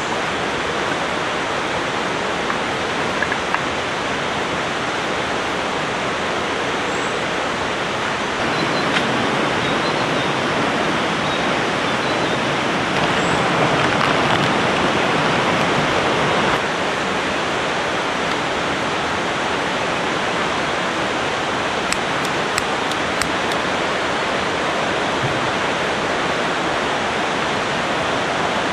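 Riverside stream flowing: a steady rush of water. It grows louder about a third of the way in, then drops back suddenly about halfway through.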